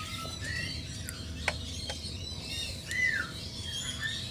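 Birds chirping with short arching calls, one standing out about three seconds in. Two sharp clicks come about a second and a half in.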